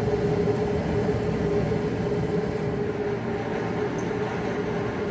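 Bauer propane forced-air shop heater running: a steady rush of fan and burner with a constant hum, a little quieter from about halfway through.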